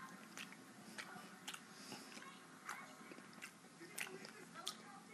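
Faint, close-up chewing of a mouthful of blackberries, with wet mouth and lip smacks every second or so.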